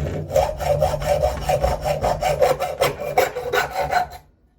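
Hacksaw cutting through a small metal on-off valve, with quick even back-and-forth strokes, about five a second, and a metallic ring. It stops abruptly near the end.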